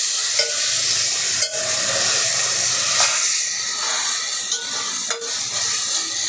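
Sliced onions and ginger-garlic paste sizzling in hot oil in a pot while a spoon stirs them, with a few knocks of the spoon against the pot.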